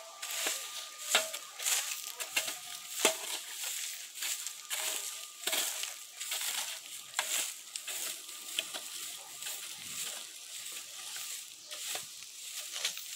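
Shovel and hoe scraping and scooping loose soil and weeds off bare ground and tipping them into a wheelbarrow: an irregular run of gritty scrapes and knocks, the sharpest about one and three seconds in.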